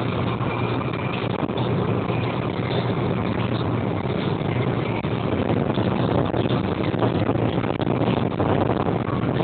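Car interior noise while driving: a steady low engine drone under the rumble of tyres on rough, potholed and patched tarmac.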